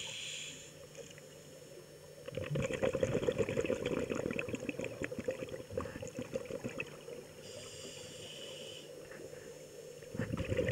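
Scuba breathing through a regulator, heard underwater. A hissing inhalation at the start and again about seven and a half seconds in alternates with long, crackling streams of exhaled bubbles, from about two seconds in and again near the end.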